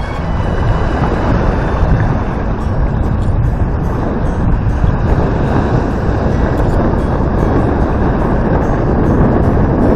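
Strong wind buffeting the camera microphone over choppy water, a steady loud rumbling noise.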